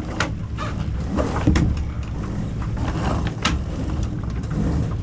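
Wind buffeting the microphone aboard a Lightning sailing dinghy, with water noise and several sharp knocks and rattles from the boat's gear.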